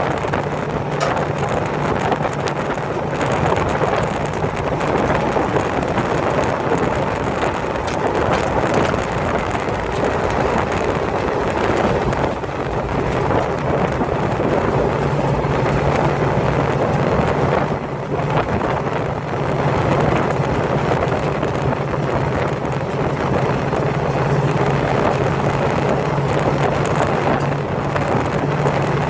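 A car engine running steadily: a constant low hum under a heavy, even wash of noise.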